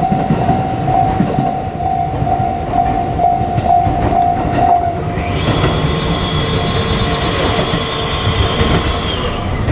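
A JR Kyushu 787-series limited express train running past a level crossing, its wheels and cars making a steady rumble and clatter, while the crossing's warning bell sounds a quick repeating ding. About five seconds in, the bell gives way to a long steady tone at several pitches, which stops just before the end.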